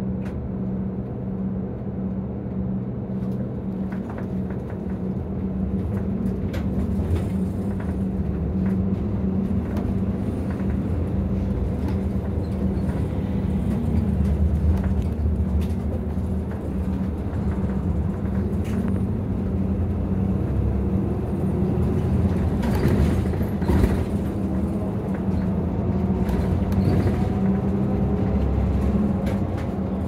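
Nissan Diesel ADG-RA273MAN city bus heard from inside the cabin: the diesel engine hums steadily at first, then the bus pulls away with rising road rumble. Engine tones climb as it accelerates, and fittings rattle now and then.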